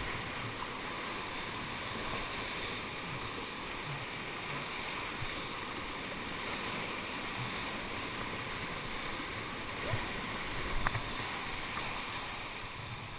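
Whitewater rushing and churning around a kayak surfing in a river hole: a steady roar of foaming water. Two short knocks come about ten to eleven seconds in.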